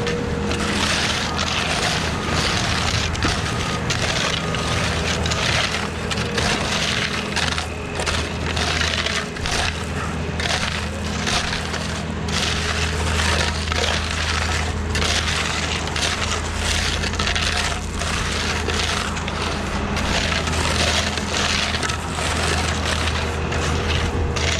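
An engine running steadily, with continuous irregular scraping and crunching over it.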